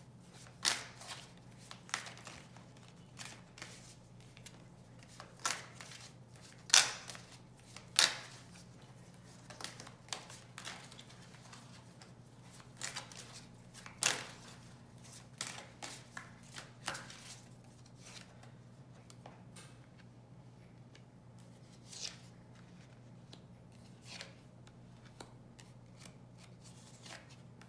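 A deck of tarot cards being shuffled by hand: a string of sharp snaps and taps, dense for the first half and sparser later. Near the end come a few lighter taps as cards are dealt onto the cloth.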